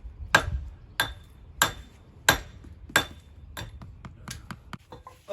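Hammer blows in stonework, sharp ringing strikes about one and a half a second, five heavy ones followed by lighter, quicker taps near the end.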